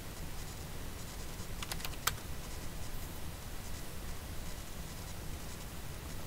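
A few computer keyboard keystrokes, with a quick cluster of clicks about two seconds in, over a low steady hum.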